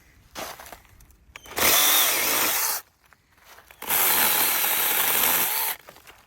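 A mini chainsaw running in two bursts, the first about a second long and the second about two seconds, its motor pitch wavering, with faint clicks in between.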